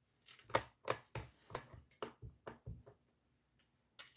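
Clear stamp on an acrylic block tapped repeatedly onto an ink pad to ink it: a run of soft, light taps, about four a second, for two and a half seconds, then one more tap near the end.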